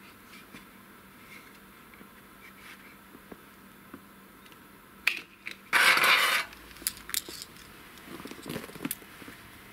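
Metal handling noise from battery charger clamps and cables: a sharp click about five seconds in, then a loud scraping rattle lasting under a second, followed by lighter metallic clinks and clatter.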